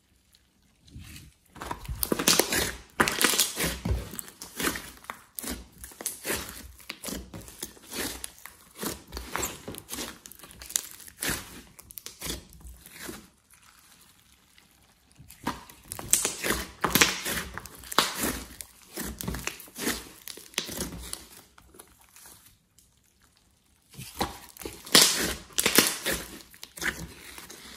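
A large lump of thick slime being kneaded, pressed and stretched by hand, giving dense crackling, clicking and tearing noises in three spells with two short pauses between them.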